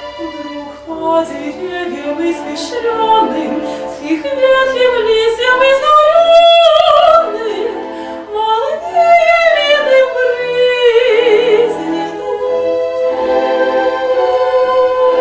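Live classical chamber music: a high melody line in long held notes with wide vibrato over a sustained accompaniment.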